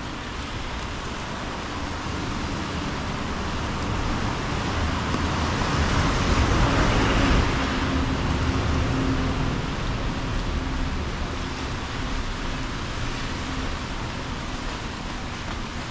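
Heavy rain falling on a city street while a vehicle drives past on the wet road. The vehicle grows louder, is loudest about seven seconds in, then fades away.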